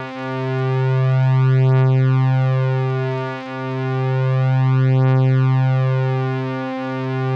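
Logic Pro X Retro Synth in wavetable mode, using the Retro Sqr-Saw wavetable, holding one low note at a steady pitch. Its tone colour keeps shifting as the Shape dial sweeps through the wavetable's digiwaves, and the level dips briefly a few times.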